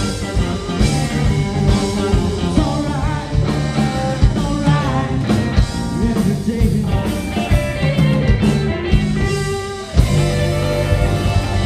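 A live band playing amplified electric guitars, bass guitar and a drum kit, with a voice singing along. There is a brief dip and an abrupt change just before ten seconds in.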